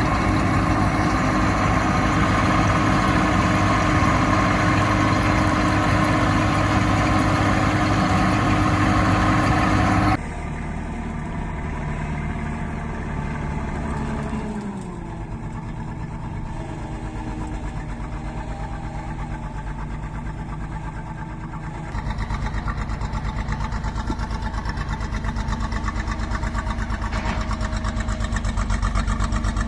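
Engine of farm machinery running steadily. It changes abruptly twice: it turns quieter about a third of the way in, with its pitch dropping a few seconds later as it slows, then it is louder again for the last quarter.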